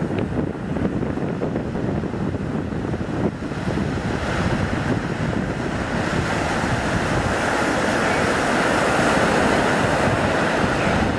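Ocean surf breaking and washing up the beach, with wind buffeting the microphone. The hiss of the surf swells louder from about four seconds in.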